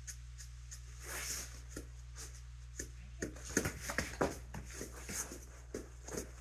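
A dog sniffing at a scent jar held out to it, with a scatter of soft knocks and clicks from its moving about from about three seconds in, over a steady low hum.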